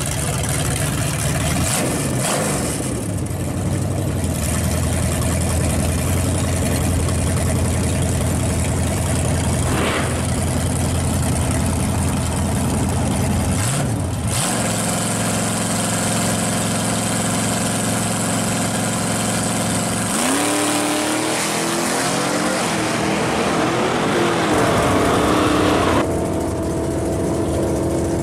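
Fox-body Ford Mustang 5.0's V8 idling steadily at the drag strip starting line; about two-thirds of the way through, an engine revs up and drops back in pitch.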